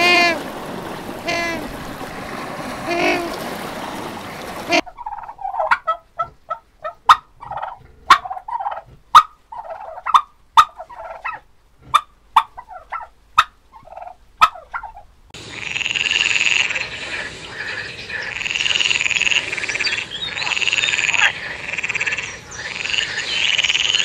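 African penguins braying over breaking surf for about five seconds, then a domestic turkey gobbling in sharp, clipped bursts for about ten seconds, then a frog croaking steadily for the rest.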